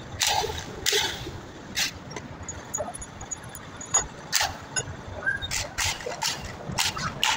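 Irregular sharp metallic clinks and knocks, about ten of them, from hand tools and parts being handled while a 4DES-5Y chiller compressor is taken apart.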